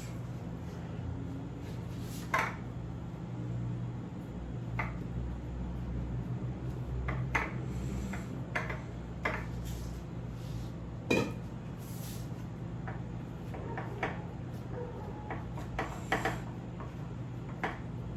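Scattered clinks and knocks of kitchenware being handled, about a dozen, the loudest a little past the middle, over a steady low hum.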